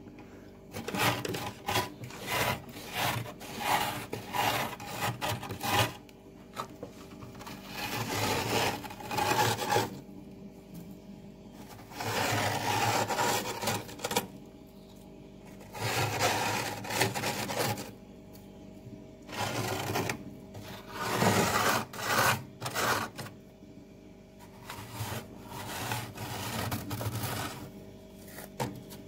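Bare fingers scraping thick frost off the inside walls and evaporator cover of a freezer. The rasping strokes come in bursts of a few seconds with short pauses between.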